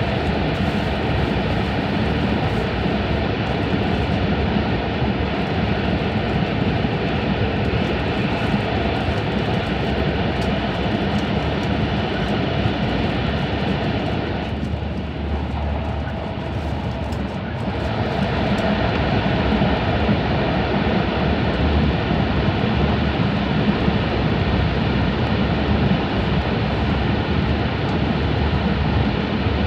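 Cabin noise of an E5 series Shinkansen running at high speed through a tunnel: a steady, dense rumble and rush of wheels and air. About halfway it eases slightly for a few seconds as the train passes a short covered section with openings between tunnels, then comes back at full strength.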